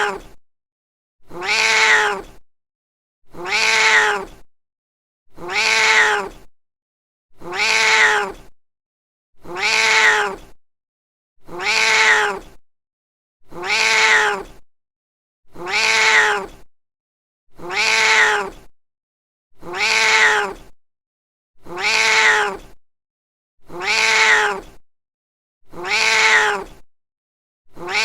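Domestic cat meowing, the same call repeated as a loop about every two seconds with silence between. Each call lasts about a second and a half, holds one pitch and fades at the end.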